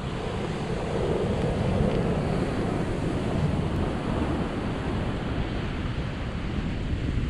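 Ocean surf breaking on a beach, a steady wash of waves with a low rumble of wind on the microphone.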